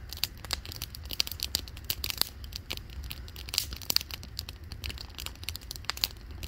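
Wood campfire crackling, with many irregular sharp snaps over a low steady rumble. A foil freeze-dried meal pouch crinkles as it is handled.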